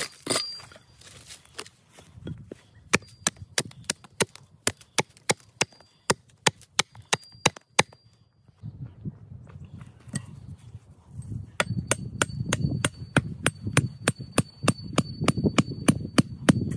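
Hatchet chopping a wooden pole on a stump, cutting it to a point: a run of sharp chops about three a second, then after a short lull a faster series of strikes with a faint metallic ring.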